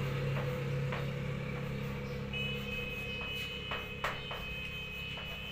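Chalk tapping and scraping on a blackboard as a word is written, with a few sharp taps, the sharpest about four seconds in. From a little before halfway a steady high two-note tone sounds alongside, over a low steady hum.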